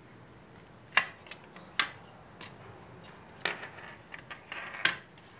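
Handling noise from a plastic graphics-card fan shroud and its USB cable: a handful of sharp, irregular clicks and knocks, the loudest about a second in and near the end, with a short rustle just before the last.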